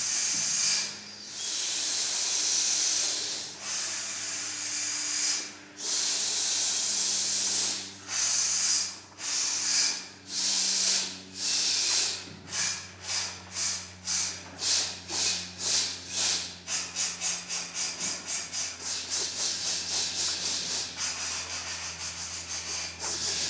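A men's chorus hissing together in pulses as a supported-breath warmup. The hisses start long and get shorter and faster until they are about three a second, and a longer hiss comes near the end.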